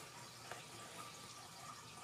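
Faint scratching of pens on sketchbook paper: a soft steady hiss with a few light ticks.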